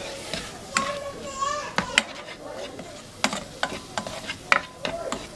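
Sliced tomato, onion and sweet pepper sizzling lightly in a dry nonstick pot as a silicone spatula stirs and scrapes them around, with irregular clicks and knocks of the spatula against the pan.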